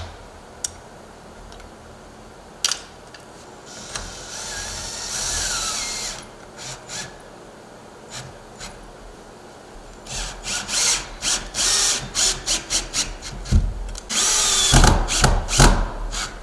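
Power drill driving screws to fasten a storm door closer's mounting bracket. A few clicks come first, then a short run about four seconds in. Quick stop-start pulses of the trigger follow, and a longer, louder run near the end.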